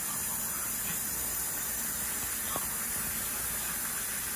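Food frying in oil in a cooking pot: a steady sizzling hiss.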